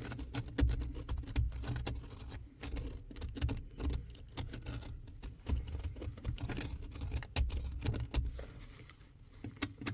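Irregular light clicks, taps and scratches from hands and small objects being handled, over a low rumble.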